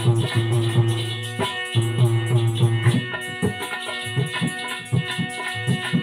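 Instrumental interlude of Alha folk music: a harmonium plays sustained notes and a melody over a low drone, with hand-drum strokes and a jingling rattle-like percussion. The low drone drops out about halfway through, leaving the drum beats and harmonium notes more prominent.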